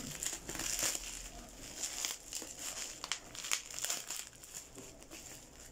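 Bubble-wrap packing rustling as it is pulled and torn open by hand, with irregular sharp crackles.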